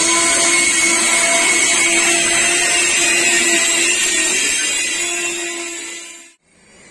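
Intercity passenger coaches rolling past close by: a loud, steady rushing rumble with a constant whine running through it. It fades about five seconds in and cuts off abruptly near the end.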